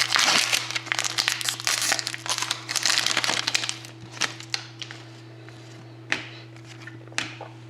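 A trading-card pack wrapper being torn open and crinkled by hand for about three and a half seconds. After that it goes quieter, with a few light taps as the cards are handled.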